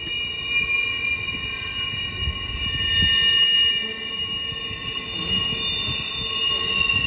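Wheels of a double-stack intermodal freight train squealing against the rails as the cars round a tight curve: several steady high-pitched squeals sounding together over the low rumble of the rolling cars. The rumble swells about two to three and a half seconds in.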